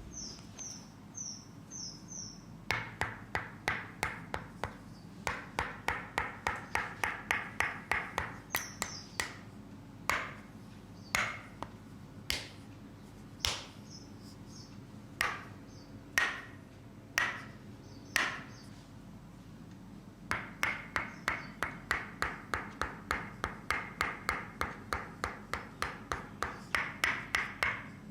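Rapid percussive massage taps in runs of about five a second, broken in the middle by single, sharper strikes about a second apart. A string of short, high chirps comes near the start.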